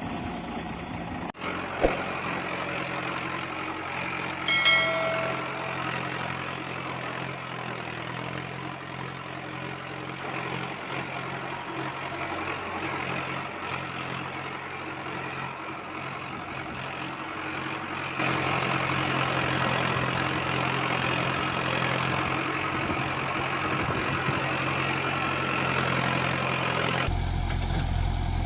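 A vehicle engine sound idling steadily, with a short pitched beep about four and a half seconds in. The engine note shifts abruptly about two-thirds of the way through and again near the end.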